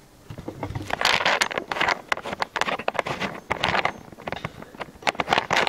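Handling noise on the camera and its microphone as it is unscrewed from its tripod: irregular scraping, rubbing and clicking, starting about half a second in and louder from about a second in.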